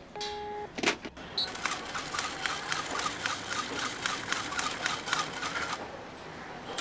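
A telephone line tone beeps once, a sharp click follows as the receiver is put down, then about four seconds of rapid, even mechanical ticking, several ticks a second, from a small printer printing out the call's charge slip at the phone booth.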